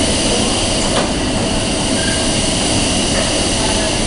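Class 474 S-Bahn electric train standing at the platform, its onboard equipment giving a steady high hiss over a low hum, with a single click about a second in.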